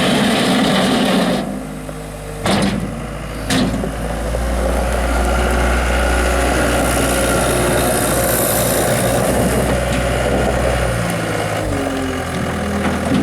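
CAT 246B skid steer's diesel engine running. Its sound drops about a second and a half in, two sharp knocks come a second apart, and then it settles into a steady deep drone that changes pitch again near the end.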